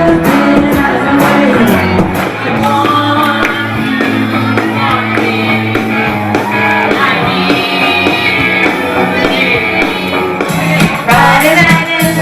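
Karaoke singing: a voice singing a pop-rock song over a backing track with a steady drum beat.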